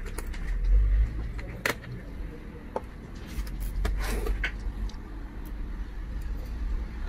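Screwdriver working a laptop hinge screw: a few small clicks and a short scrape of metal and plastic, over a low rumble.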